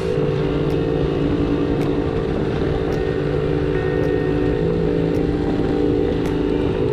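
Vespa scooter engine running steadily at cruising speed, with wind and road noise.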